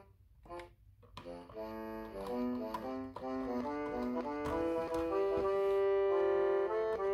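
Children's electronic toy keyboard playing: one short note, then a melody of overlapping sustained synthesized notes that ends on a long held note.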